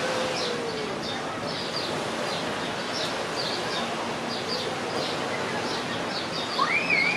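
Small birds chirping over and over, high and brief, against a steady outdoor rushing noise. Near the end a louder whistled note rises and wavers.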